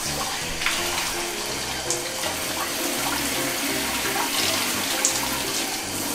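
Hand-held shower head spraying a steady stream of water while rinsing a cat, with light background music underneath.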